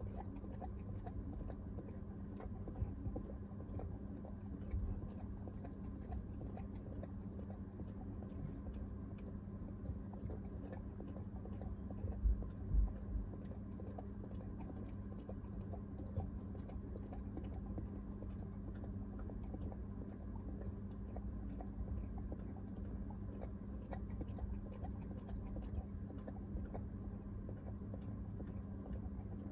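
Staffordshire bull terrier licking and chewing at a treat toy to get the treats out: many small wet mouth clicks, with a few louder knocks of the toy about twelve seconds in. A steady low hum runs underneath.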